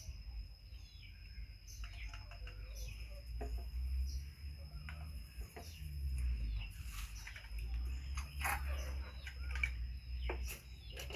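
Birds chirping now and then, with scattered clicks over a low rumble and a steady high-pitched tone.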